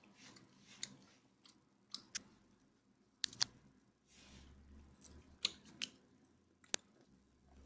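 Irregular sharp clicks and taps, about a dozen spread unevenly, with a soft rustle about four seconds in.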